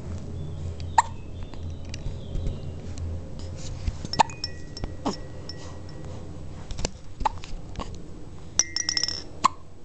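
Hiccups: several short, sharp ones a few seconds apart, over a low steady hum.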